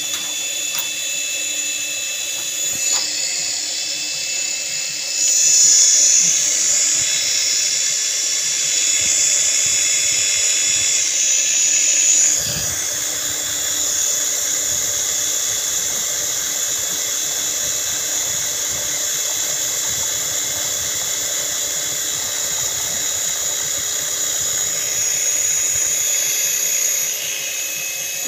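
A small drone motor spins the main rotor of a plastic-bottle model helicopter, giving a steady high-pitched whine with a whir from the blades. It grows louder about five seconds in and eases back a few seconds before the middle.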